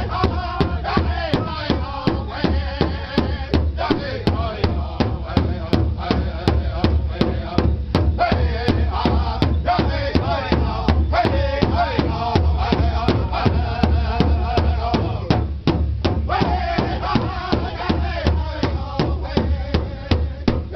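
Powwow drum group striking a large shared drum in a steady, fast, even beat while the men sing together over it.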